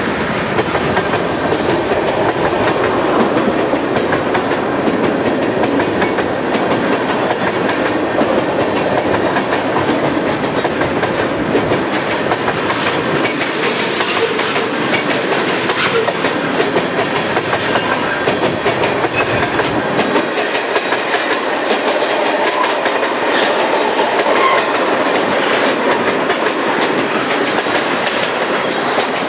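Freight train cars, mostly loaded tank cars, rolling past close by: a steady rolling rush of steel wheels on rail with repeated clickety-clack as the wheels cross rail joints.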